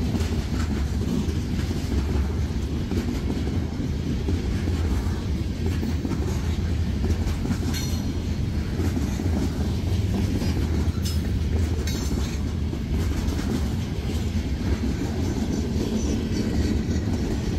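Loaded freight cars (covered hoppers and gondolas) rolling past close by: a steady heavy rumble of steel wheels on rail with clickety-clack over the joints. A few brief high squeaks and clicks come partway through.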